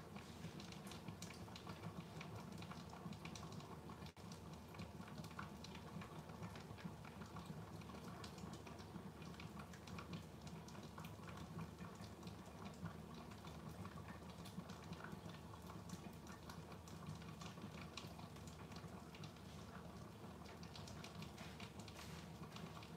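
Covered pot of curry chicken sauce simmering to reduce: faint, irregular small ticks and pops of bubbling under a glass lid, over a low steady hum.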